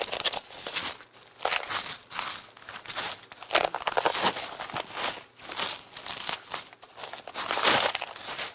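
Packaging being torn open and crumpled by hand: irregular crinkling and tearing rustles that come and go.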